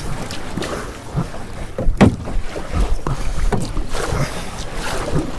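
Canoe paddling at race pace: paddle blades splashing and dipping in the water, with irregular knocks and one sharp knock about two seconds in.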